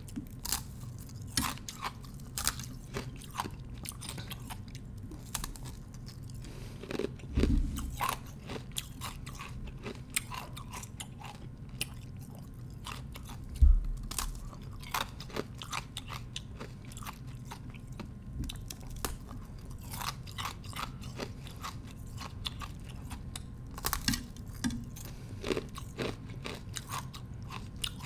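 A thin slab of ice being bitten and chewed close to the microphone: irregular runs of crisp crunches and cracks, with two louder dull thumps about seven and fourteen seconds in, over a steady low hum.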